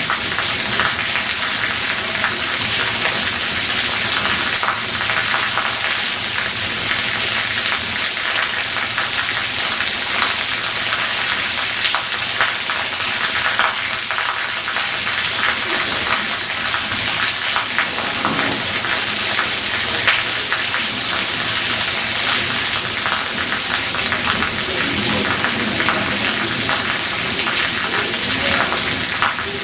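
Heavy downpour of rain: a steady, dense hiss with many small drop ticks.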